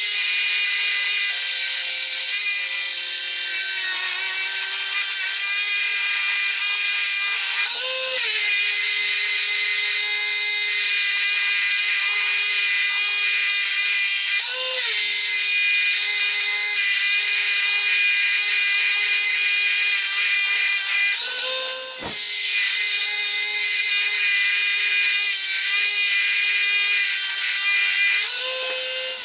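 Electric power tool running steadily under load with a constant high-pitched whine. Its pitch flicks up briefly about four times as the load eases, and there is one short break with a sharp knock about two-thirds of the way through.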